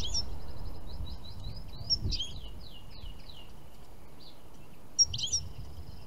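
Small songbird singing: a quick trill, then a run of fast down-slurred notes, and a second twittering phrase with a trill about five seconds in, over a low steady background rumble.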